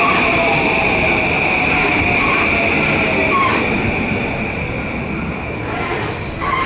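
Electric commuter train running past with a steady high squeal and a motor whine that glides down in pitch, the sound fading slowly toward the end.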